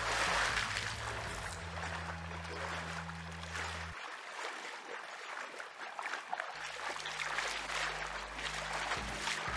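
Lake water splashing around a person standing in it: a large splash about the start, then uneven sloshing as he wades through the shallows.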